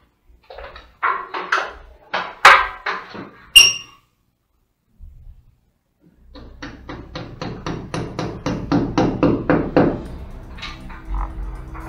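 Hammer tapping a plastic wall plug into a hole drilled in a concrete column, in a quick even run of about five strikes a second that lasts some four seconds after a short pause. Before that come a few irregular knocks and a ringing clink.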